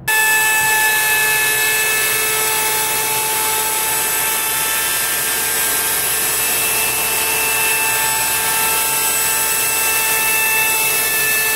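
Handheld wood router running at full speed with a quarter-inch round-over bit, cutting a rounded edge on a padauk and walnut cutting board: a loud, steady high whine over a hiss.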